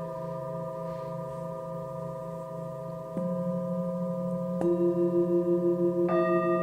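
Sound bowls ringing in long, overlapping sustained tones. New tones come in about three seconds in, again at about four and a half seconds with a struck onset, and once more near the end, after which the sound wavers with a slow pulse.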